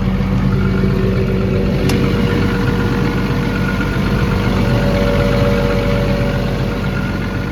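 The XCMG XE210CU excavator's Cummins diesel engine running steadily, running well and pulling strongly, with one faint click about two seconds in.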